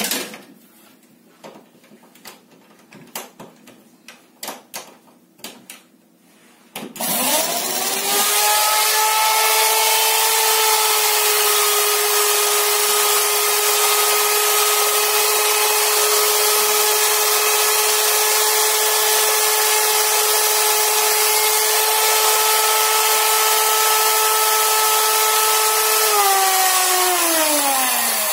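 Electric hand mixer whipping egg whites toward a stiff foam in a stainless steel pot. A few light taps and knocks come first; about seven seconds in, the motor starts and runs at one steady pitch, then slows and its pitch falls near the end.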